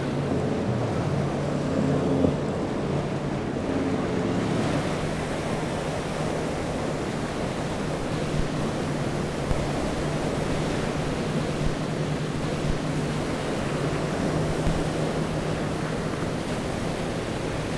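Waves and churning surf in a boat inlet, with wind buffeting the microphone, over the steady low drone of boat engines.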